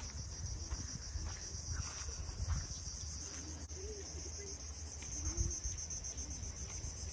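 Steady high-pitched chorus of insects shrilling in the trees, finely pulsing, over a low rumble.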